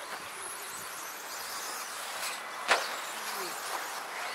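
Electric RC stadium trucks running on the track: a steady high buzzing whine of brushless motors and tyre hiss, with one sharp knock about two and a half seconds in.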